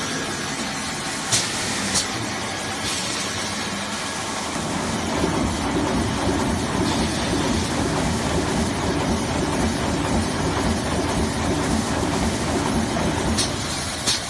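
Xinyun XY-A1-400 band saw toilet paper roll cutting machine running at speed, a steady mechanical whir that grows louder about five seconds in. A few sharp clicks come near the start and again near the end.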